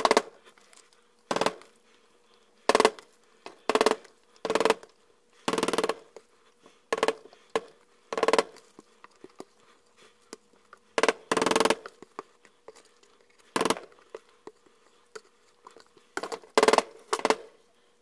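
Silicone spatula and metal spoon scraping and knocking against a plastic mixing bowl while thick soap batter is scooped out into a silicone loaf mold: about fifteen short, irregular scrapes and taps.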